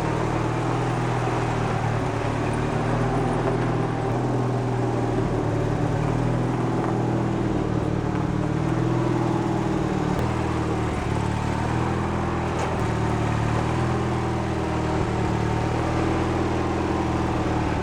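Riding lawn tractor's engine running steadily, its pitch wavering slightly up and down.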